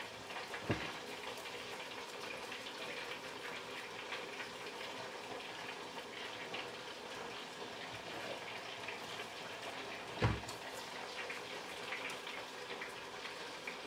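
Faint wet squishing of raw minced-meat mixture being pressed and rolled between hands, with a soft knock about ten seconds in.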